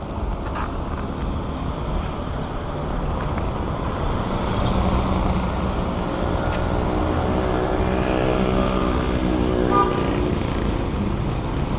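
Road traffic: a vehicle engine running over a steady road rumble, with the engine's hum growing clearer about halfway through.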